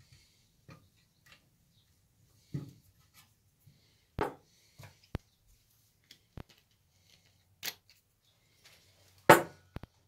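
Scattered clicks, knocks and rustles of small objects handled and set down on a table, around a primus stove and its steel case; the loudest is a knock about nine seconds in.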